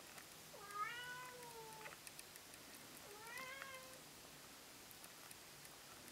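A cat meowing twice: the first call lasts a little over a second and the second a little under a second, about two and a half seconds apart.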